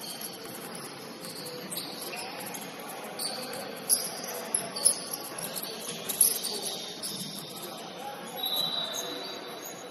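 Basketball shoes squeaking on a gym court during play: many short high squeaks and chirps, the loudest a few in the middle, over a steady low gym hum.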